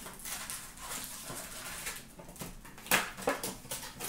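Hockey card pack wrapper rustling and crinkling as the pack is torn open and the cards are pulled out and handled. There are irregular sharp crackles, the loudest about three seconds in.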